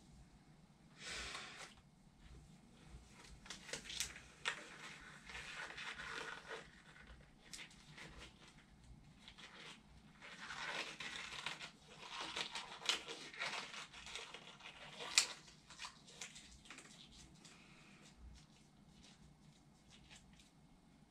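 Blue disposable gloves being pulled onto the hands: irregular rubbery rustling and crinkling with a few sharp snaps, the loudest about fifteen seconds in.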